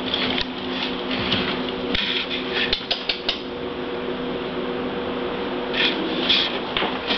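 Steady low hum with scattered light clicks and scuffs of movement, dense for the first few seconds, sparse in the middle and picking up again near the end.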